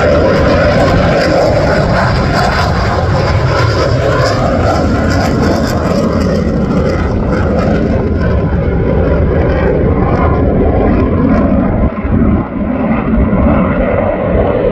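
F-22 Raptor fighter jet flying past, its twin afterburning turbofan engines giving a loud, steady roar. The high hiss of the roar fades in the second half as the jet draws away.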